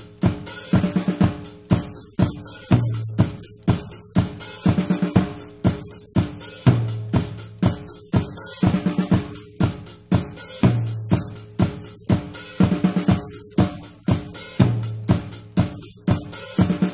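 A recorded drum kit groove playing, with kick, snare and hi-hat hits in a steady repeating pattern and a low note that comes back about every two seconds.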